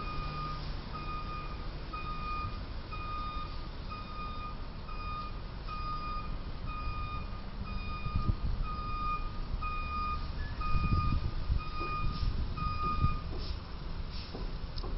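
Box truck's reversing alarm beeping steadily about twice a second as the truck backs up, over a low traffic rumble; the beeping stops near the end.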